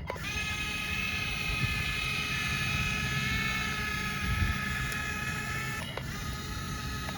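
Small electric motor of a remote-control toy excavator whining steadily at an even pitch. It starts suddenly and cuts off about six seconds in.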